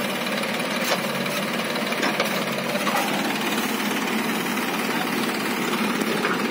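A JCB backhoe loader's diesel engine running steadily while it digs and loads soil.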